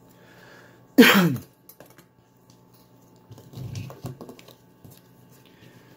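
Light clicks and handling noise from a just-opened Abus 83WP/63 padlock and lock-picking tools being worked by hand, with one brief louder sound about a second in.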